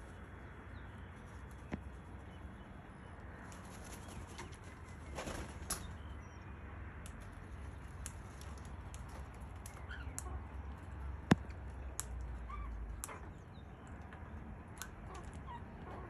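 Bird wings flapping as an Australian magpie leaves the seed on the railing and a crimson rosella flies in, with a short burst of wingbeats about five seconds in. Scattered small ticks and one sharp click about eleven seconds in sound over a low steady rumble.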